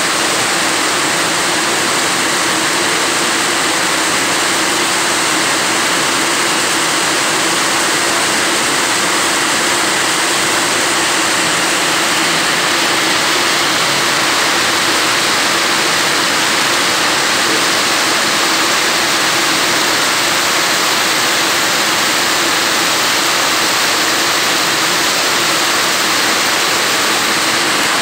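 Heavy rain falling steadily, a dense, even hiss with no breaks.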